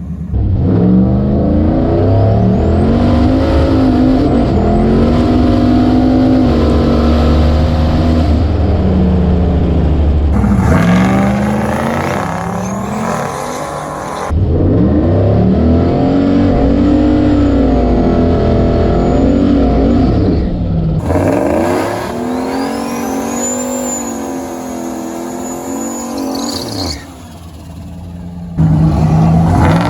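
Turbocharged 6.0-litre LS V8 in a Fox-body Mustang, revving and accelerating hard, its pitch climbing and falling back again and again as it goes through the gears. A thin high whistle rises and then holds during the pulls. The sound jumps abruptly several times between separate takes.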